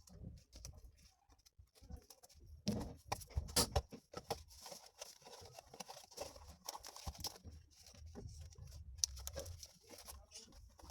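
Close-up rustling, scratching and light tapping from handling stickers and their packaging, with a louder burst of crinkling about three seconds in.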